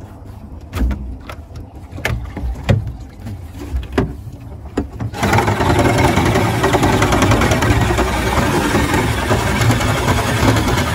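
Small homemade outboard boat motor being started: a few sharp knocks and clicks as it is worked, then about five seconds in the engine catches and runs steadily.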